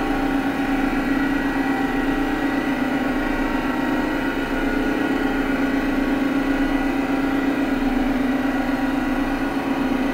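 Electronic ambient music: a sustained synthesizer drone, one strong low tone with fainter higher tones layered above it, held steady with no beat.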